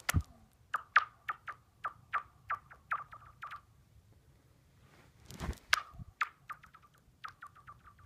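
Stones skipping and sliding across thin new ice on a frozen pond. Each bounce is a sharp click that drops quickly in pitch into a short ringing chirp, and the bounces come faster and faster as the stone slides to a stop. Two throws, each starting with a thump, the second about five seconds in.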